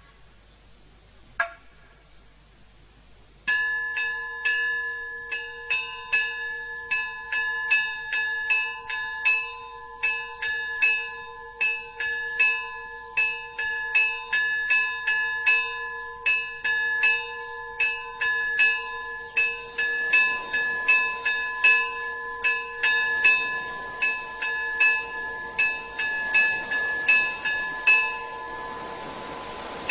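Orthodox church bells being chimed: a single stroke a second or so in, then from a few seconds in several bells struck in a quick, uneven rhythm of about two strokes a second over their lasting ring.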